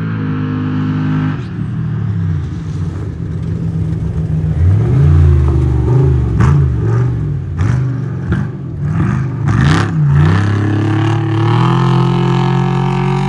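Off-road race truck engine running steadily, then revved hard several times between about 4 and 10 seconds in, its pitch swinging up and down, with several short sharp clattering bursts, before settling back to a steady drone.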